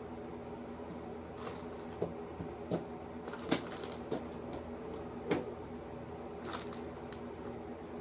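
Scattered light clicks and rustles as shredded lettuce and dishes are handled while taco bowls are assembled, over a steady hum.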